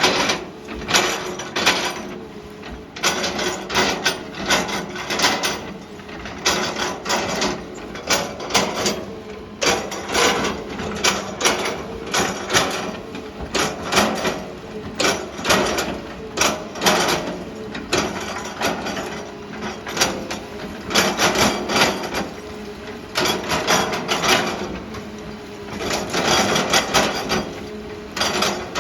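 Excavator engine running steadily under a dense series of irregular loud cracks and knocks, as the machine pushes over oil palm trees and their trunks and fronds break.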